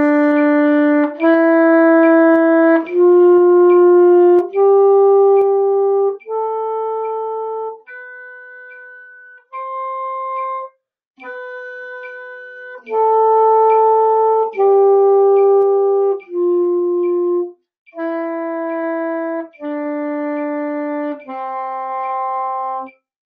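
Alto saxophone playing a one-octave A major scale, concert C, up and back down in slow half notes, each note held about a second and a half. The highest notes in the middle are played softer than the low ones.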